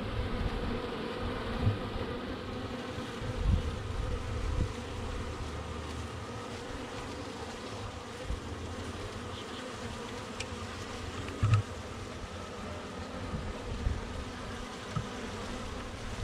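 Package of honeybees in a screened box, buzzing in a steady hum. A few short low thumps break in.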